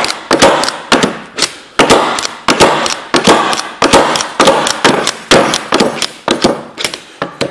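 Homemade giant automatic centre punch firing over and over as it is pressed down onto a wooden block: its spring-loaded hammer releases onto the anvil with a sharp snap each time, about two or three strikes a second, punching marks into the wood.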